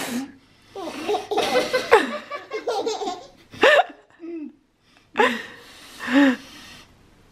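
A baby laughing in several short bursts, mixed with an adult's laughter.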